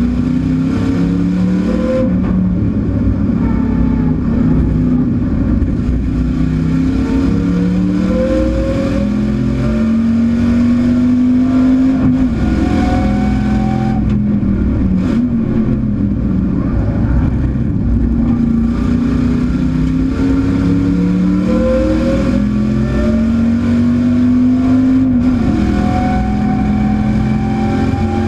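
Chevrolet Camaro race car's V8 engine under hard acceleration, heard from inside the stripped cabin: the revs climb in long pulls and drop off sharply several times as the driver shifts or lifts.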